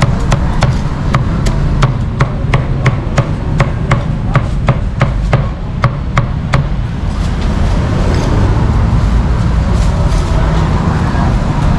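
Cleaver chopping crispy roast pork on a chopping board: quick sharp chops about three a second, stopping about two-thirds of the way through. Steady street traffic noise runs underneath.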